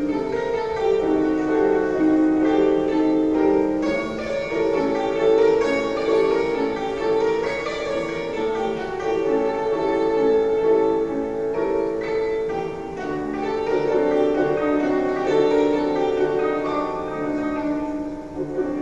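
Instrumental background music made of long held notes.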